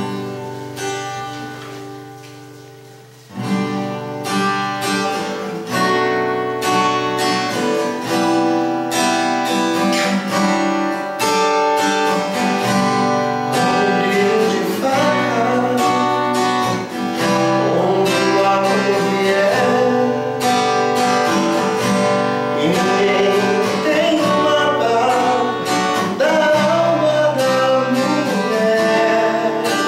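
Steel-string Takamine acoustic guitar: one chord rings out and fades, then steady rhythmic strumming starts about three seconds in. About halfway through, a voice begins singing over the strumming.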